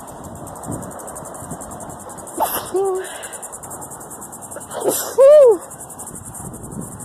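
A person sneezes twice, about two and a half seconds in and again about five seconds in, the second sneeze louder; these are hay-fever allergy sneezes. Crickets chirp steadily in the background throughout.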